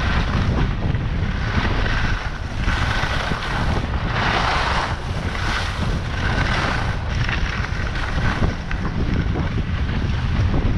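Wind rumbling on the microphone of a downhill skier's camera, with skis hissing and scraping on packed snow in repeated swells.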